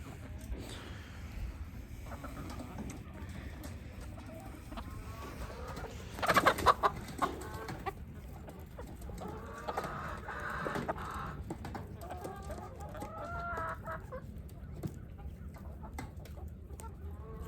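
Chickens clucking and calling, with a loud short outburst about six seconds in and a string of drawn-out calls a few seconds later.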